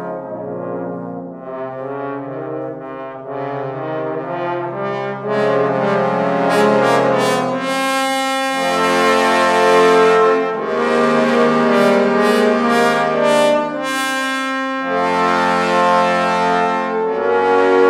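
Trombone ensemble with a bass trombone soloist playing sustained brass chords. It grows louder about five seconds in, and very low notes come in at about eight and a half seconds.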